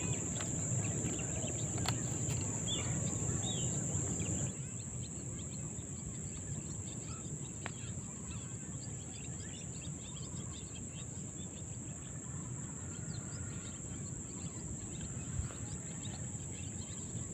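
Steady high-pitched insect buzz, like crickets, with a few faint bird chirps over it. A low rustling handling noise runs for the first four seconds or so, then stops.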